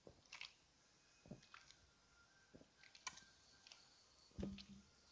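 Faint swallowing as soda is gulped from a plastic bottle, a soft gulp about every second and a bit, with small wet clicks of the mouth and lips. Near the end a brief low sound in the throat as the carbonation gas is held down.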